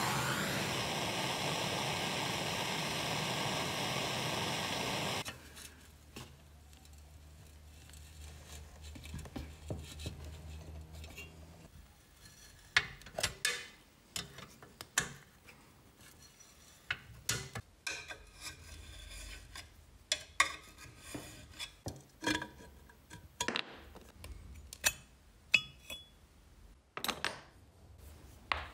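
Gas blowtorch burning with a steady hiss, cut off suddenly about five seconds in. Then a run of sharp metal clinks, knocks and scrapes as rusted spokes and spoke nipples are worked on an old spoked motorcycle wheel.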